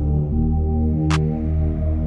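Background music: sustained low chords with a sharp percussive hit about a second in.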